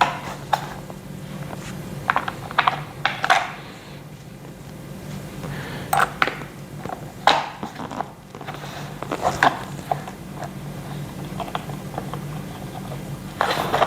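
Irregular clicks and knocks of plastic and metal gaming-chair parts being handled while a plastic cover is fitted over a joint and screwed on, over a low steady hum.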